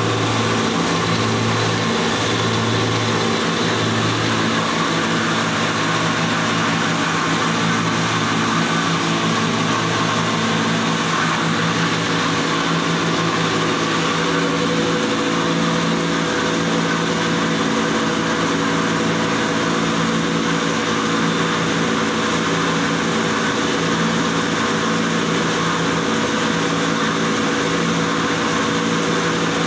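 Small electric flour mill (cyclone atta chakki) running while grinding wheat into flour, its belt-driven motor making a steady hum over an even rush of grinding and airflow. A low throb pulses about once a second for the first ten seconds or so.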